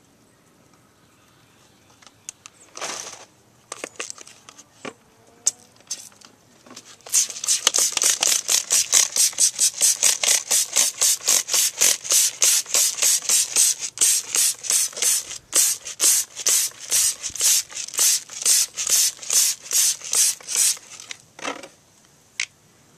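Trigger spray bottle of foaming wheel cleaner, pumped rapidly onto an alloy wheel: a fast run of short hissing squirts, about three or four a second, starting about a third of the way in and going on for some fourteen seconds. Before the run come a few clicks of the trigger and one single spray.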